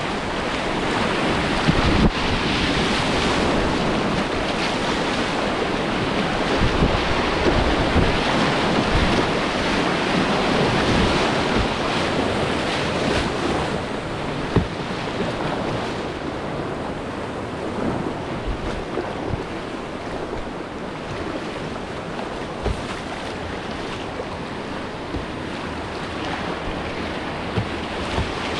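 Rushing whitewater of a river rapid around a kayak, a steady churning roar of water that eases a little after about halfway, with brief gusts of wind noise on the microphone.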